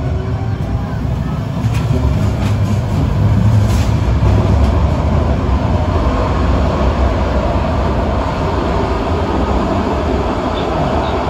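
Underground light-rail car pulling out of a station and running into the tunnel: a steady low rumble of wheels on rails, heard from the driver's cab. A few sharp clicks come about two to five seconds in, as the rumble swells, and a steady whine sets in from about halfway.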